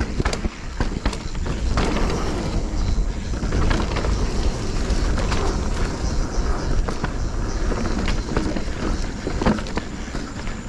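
Specialized Stumpjumper Evo mountain bike riding down a dirt trail, its tyres rolling over roots and rocks with frequent clicks and knocks from the bike's rattling. Steady wind rumble on the microphone.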